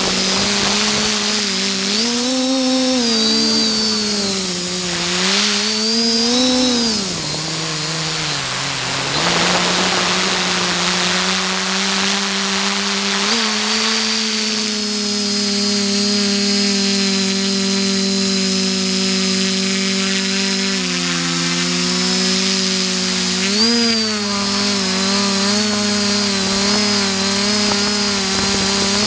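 Multirotor drone's electric motors and propellers buzzing, heard from the onboard camera. The pitch swells and dips several times in the first ten seconds, holds steady, then dips and rises again a little past twenty seconds, over a thin steady high whine.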